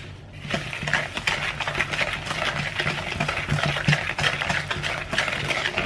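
Wire whisk beating softened butter, sugar and eggs in a plastic bowl, its wires clicking and scraping against the bowl's sides in quick, steady strokes.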